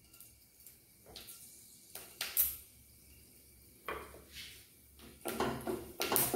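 A few scattered scrapes and knocks, then from about five seconds in, a spatula stirring and scraping around a stainless steel kadai, frying whole spices in oil.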